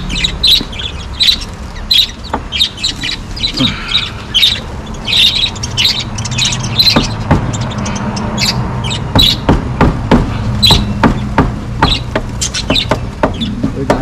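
Lovebirds in their cage chirping over and over, with sharp knocks, more frequent in the second half, as small wooden pegs are tapped into holes in the cage's wooden panel with the back of a large knife blade to plug them.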